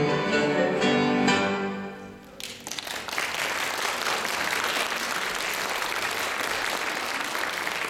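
Children's cello ensemble playing a final chord that dies away about two seconds in, followed by steady audience applause.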